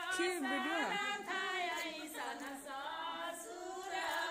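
Several women's voices singing together without instruments, overlapping and wavering in pitch.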